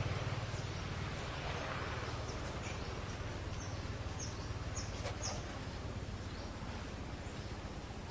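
Outdoor woodland ambience: a steady low rumble and hiss, with about half a dozen short, high bird chirps in the middle.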